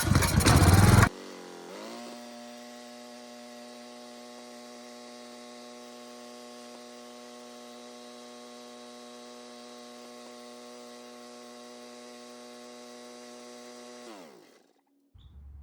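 Portable generator engine with its choke on starting up: loud for about a second, then a much quieter steady, even hum as it runs. Near the end the hum falls in pitch and stops as the engine winds down.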